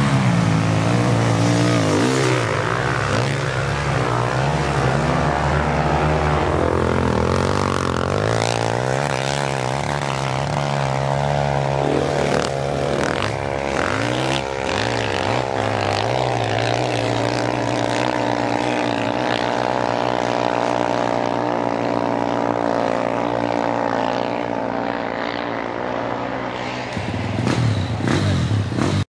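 Off-road motorcycle engine revving hard on a hill climb, its pitch rising and falling with the throttle, then holding at high, steady revs. The sound changes abruptly near the end.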